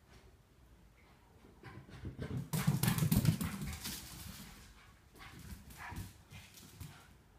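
Small dogs making noises as they play, with scuffling on the floor: a stretch of about three seconds, then a few shorter bursts.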